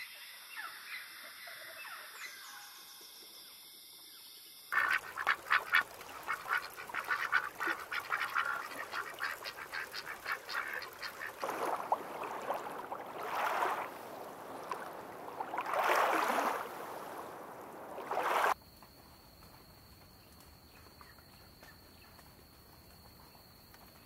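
Ducks calling: a dense run of fast, chattering calls, then several louder calls of about a second each. They cut off abruptly about two-thirds of the way in. Fainter bird calls come before and after.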